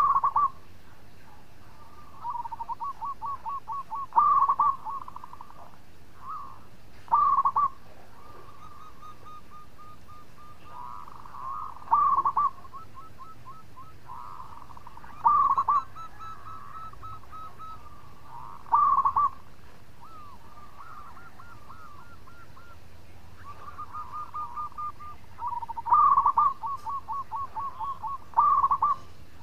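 Zebra dove (perkutut) singing: rolling series of quick, clipped coos, each capped by a louder short phrase, repeated about every three to four seconds.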